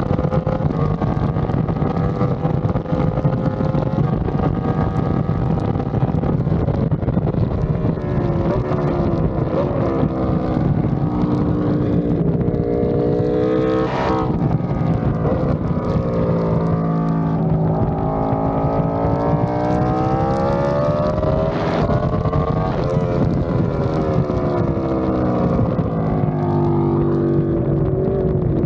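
Sport motorcycle's engine on a racetrack lap with wind rush over the bike. The engine holds a high pitch at speed, then drops as the bike slows, rises again as it accelerates, and drops once more before levelling off, with two short sharp blips along the way.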